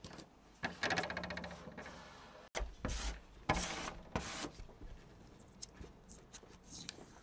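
Vinyl stripe decal on transfer tape being rubbed down onto the vehicle's surface with a hand squeegee. A crackly rubbing of the tape and paper comes first, then several short squeegee strokes.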